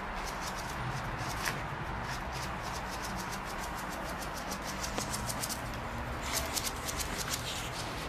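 A pug puppy's claws scratching at a painted wall, in quick repeated strokes, several a second, coming in spells.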